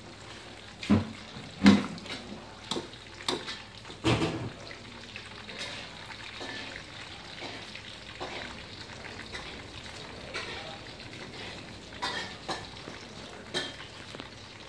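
Wild pomelo leaves sizzling steadily in hot oil in a wok, with about five sharp metal knocks in the first four seconds as a metal strainer taps against the wok, and a couple of lighter clicks near the end.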